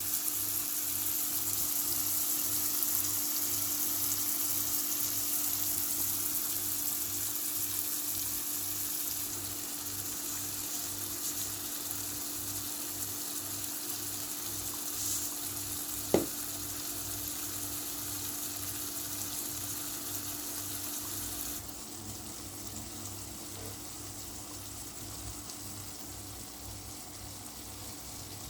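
Halved peppers frying in butter in a pan, a steady sizzle over a constant low hum. There is one sharp click about 16 seconds in, and the sizzle drops quieter about 21 seconds in.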